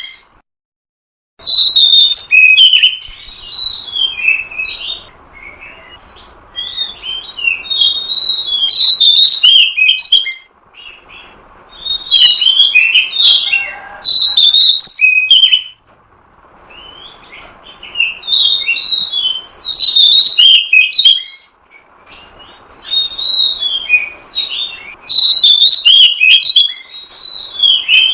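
Oriental magpie-robin (kacer) singing loudly in repeated bouts of varied whistled and chattering phrases, each a few seconds long with short pauses between. This is a lure song for drawing in wild birds.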